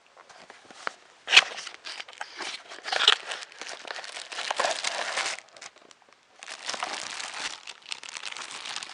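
Packaging crinkling and rustling as a boxed part is unpacked by hand, in two spells with a short pause near the middle.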